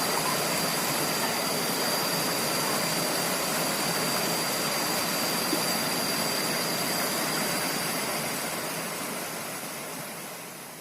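Steady rush of river water flowing over rocks, fading out near the end.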